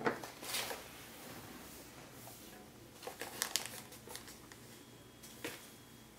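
Faint crinkling and rustling of a tissue box's plastic opening film and cardboard as a kitten moves inside it, in a few short spells: about half a second in, around three seconds in, and again near the end.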